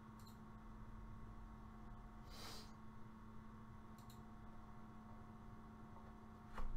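Quiet room tone with a steady low hum, broken by a few soft clicks and a short hiss about two and a half seconds in, and a sharper click near the end.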